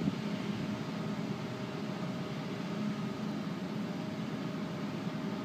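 Steady mechanical hum with a faint constant drone and background hiss, unchanging throughout.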